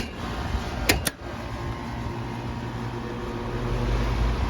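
A few sharp clicks in the first second, then the steady hum of a three-phase outdoor air-conditioning condensing unit, growing louder toward the end as its condenser fan starts up. The compressor does not start, and the technician later finds it has failed.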